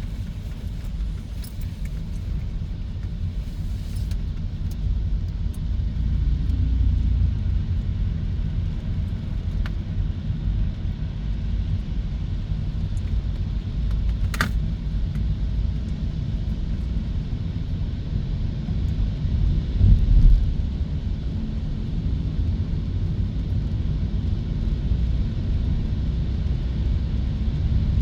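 Steady low road and tyre rumble of a Hyundai Kona EV driving, with no engine note. A sharp click comes about halfway through, and a brief louder low thump about twenty seconds in.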